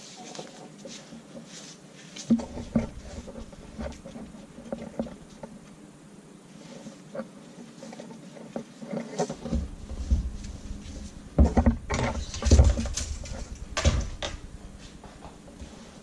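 Webbing tow strap being handled and coiled by hand: scattered rustles and scrapes of the stiff fabric with soft low thumps, busiest and loudest from about ten to fourteen seconds in.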